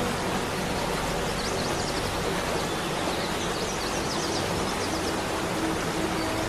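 JCB backhoe loader's diesel engine running steadily as its bucket works at a large tree stump, heard as an even rushing noise with a faint low hum. A few short, high bird chirps about two seconds in.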